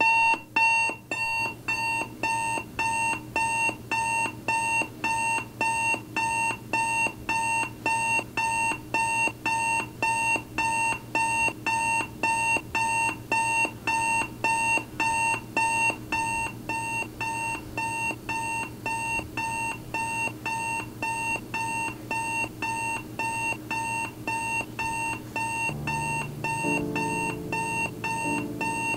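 Digital alarm clock going off as a wake-up alarm: a steady, unchanging run of short high-pitched beeps, about two a second. Soft piano music comes in underneath near the end.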